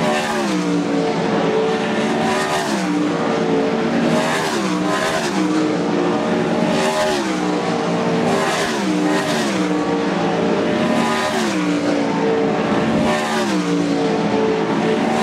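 World of Outlaws winged sprint cars' 410 cubic-inch V8 engines at full race pitch on a dirt oval, several cars together. Their note keeps falling and climbing again every second or two as cars come past and lift and get back on the throttle through the turn.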